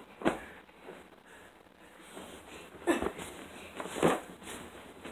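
Pillow fight on a bed: three dull, soft thumps of pillows and bodies hitting the mattress, about a quarter second, three and four seconds in.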